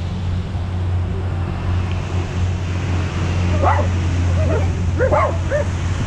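A small dog giving a quick run of short, high calls that rise and fall, starting a little past halfway, over a steady low hum.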